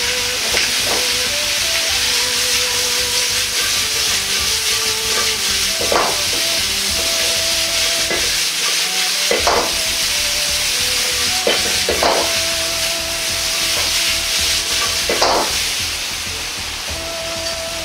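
Potato, carrot and onion chunks sizzling as they stir-fry in pork fat in a Chinese wok over a gas flame. A few short stirring scrapes come about every three seconds from about six seconds in.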